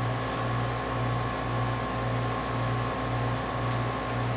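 Steady mechanical hum with a low throb that swells and dips a little more than once a second, like a running fan or air handler. A few faint light ticks sit over it.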